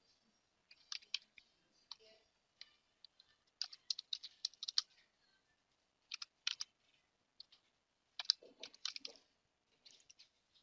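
Computer keyboard typing: faint keystrokes in short, irregular bursts separated by pauses.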